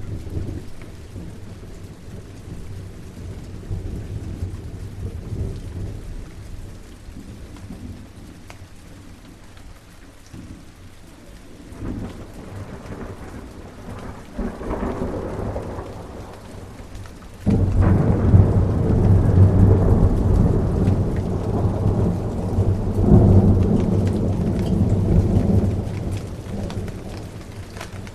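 Steady rain with rolling thunder: a low rumble swells around the middle, then a loud thunderclap breaks in about two-thirds through and rumbles on for several seconds before fading.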